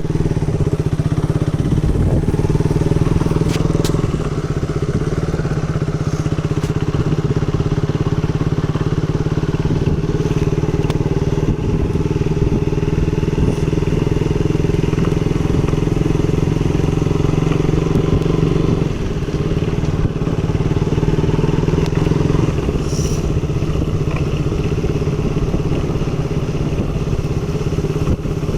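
KTM 200 Duke's single-cylinder engine running steadily on an off-road ride, its pitch holding much the same throughout, with a few scattered clicks and knocks.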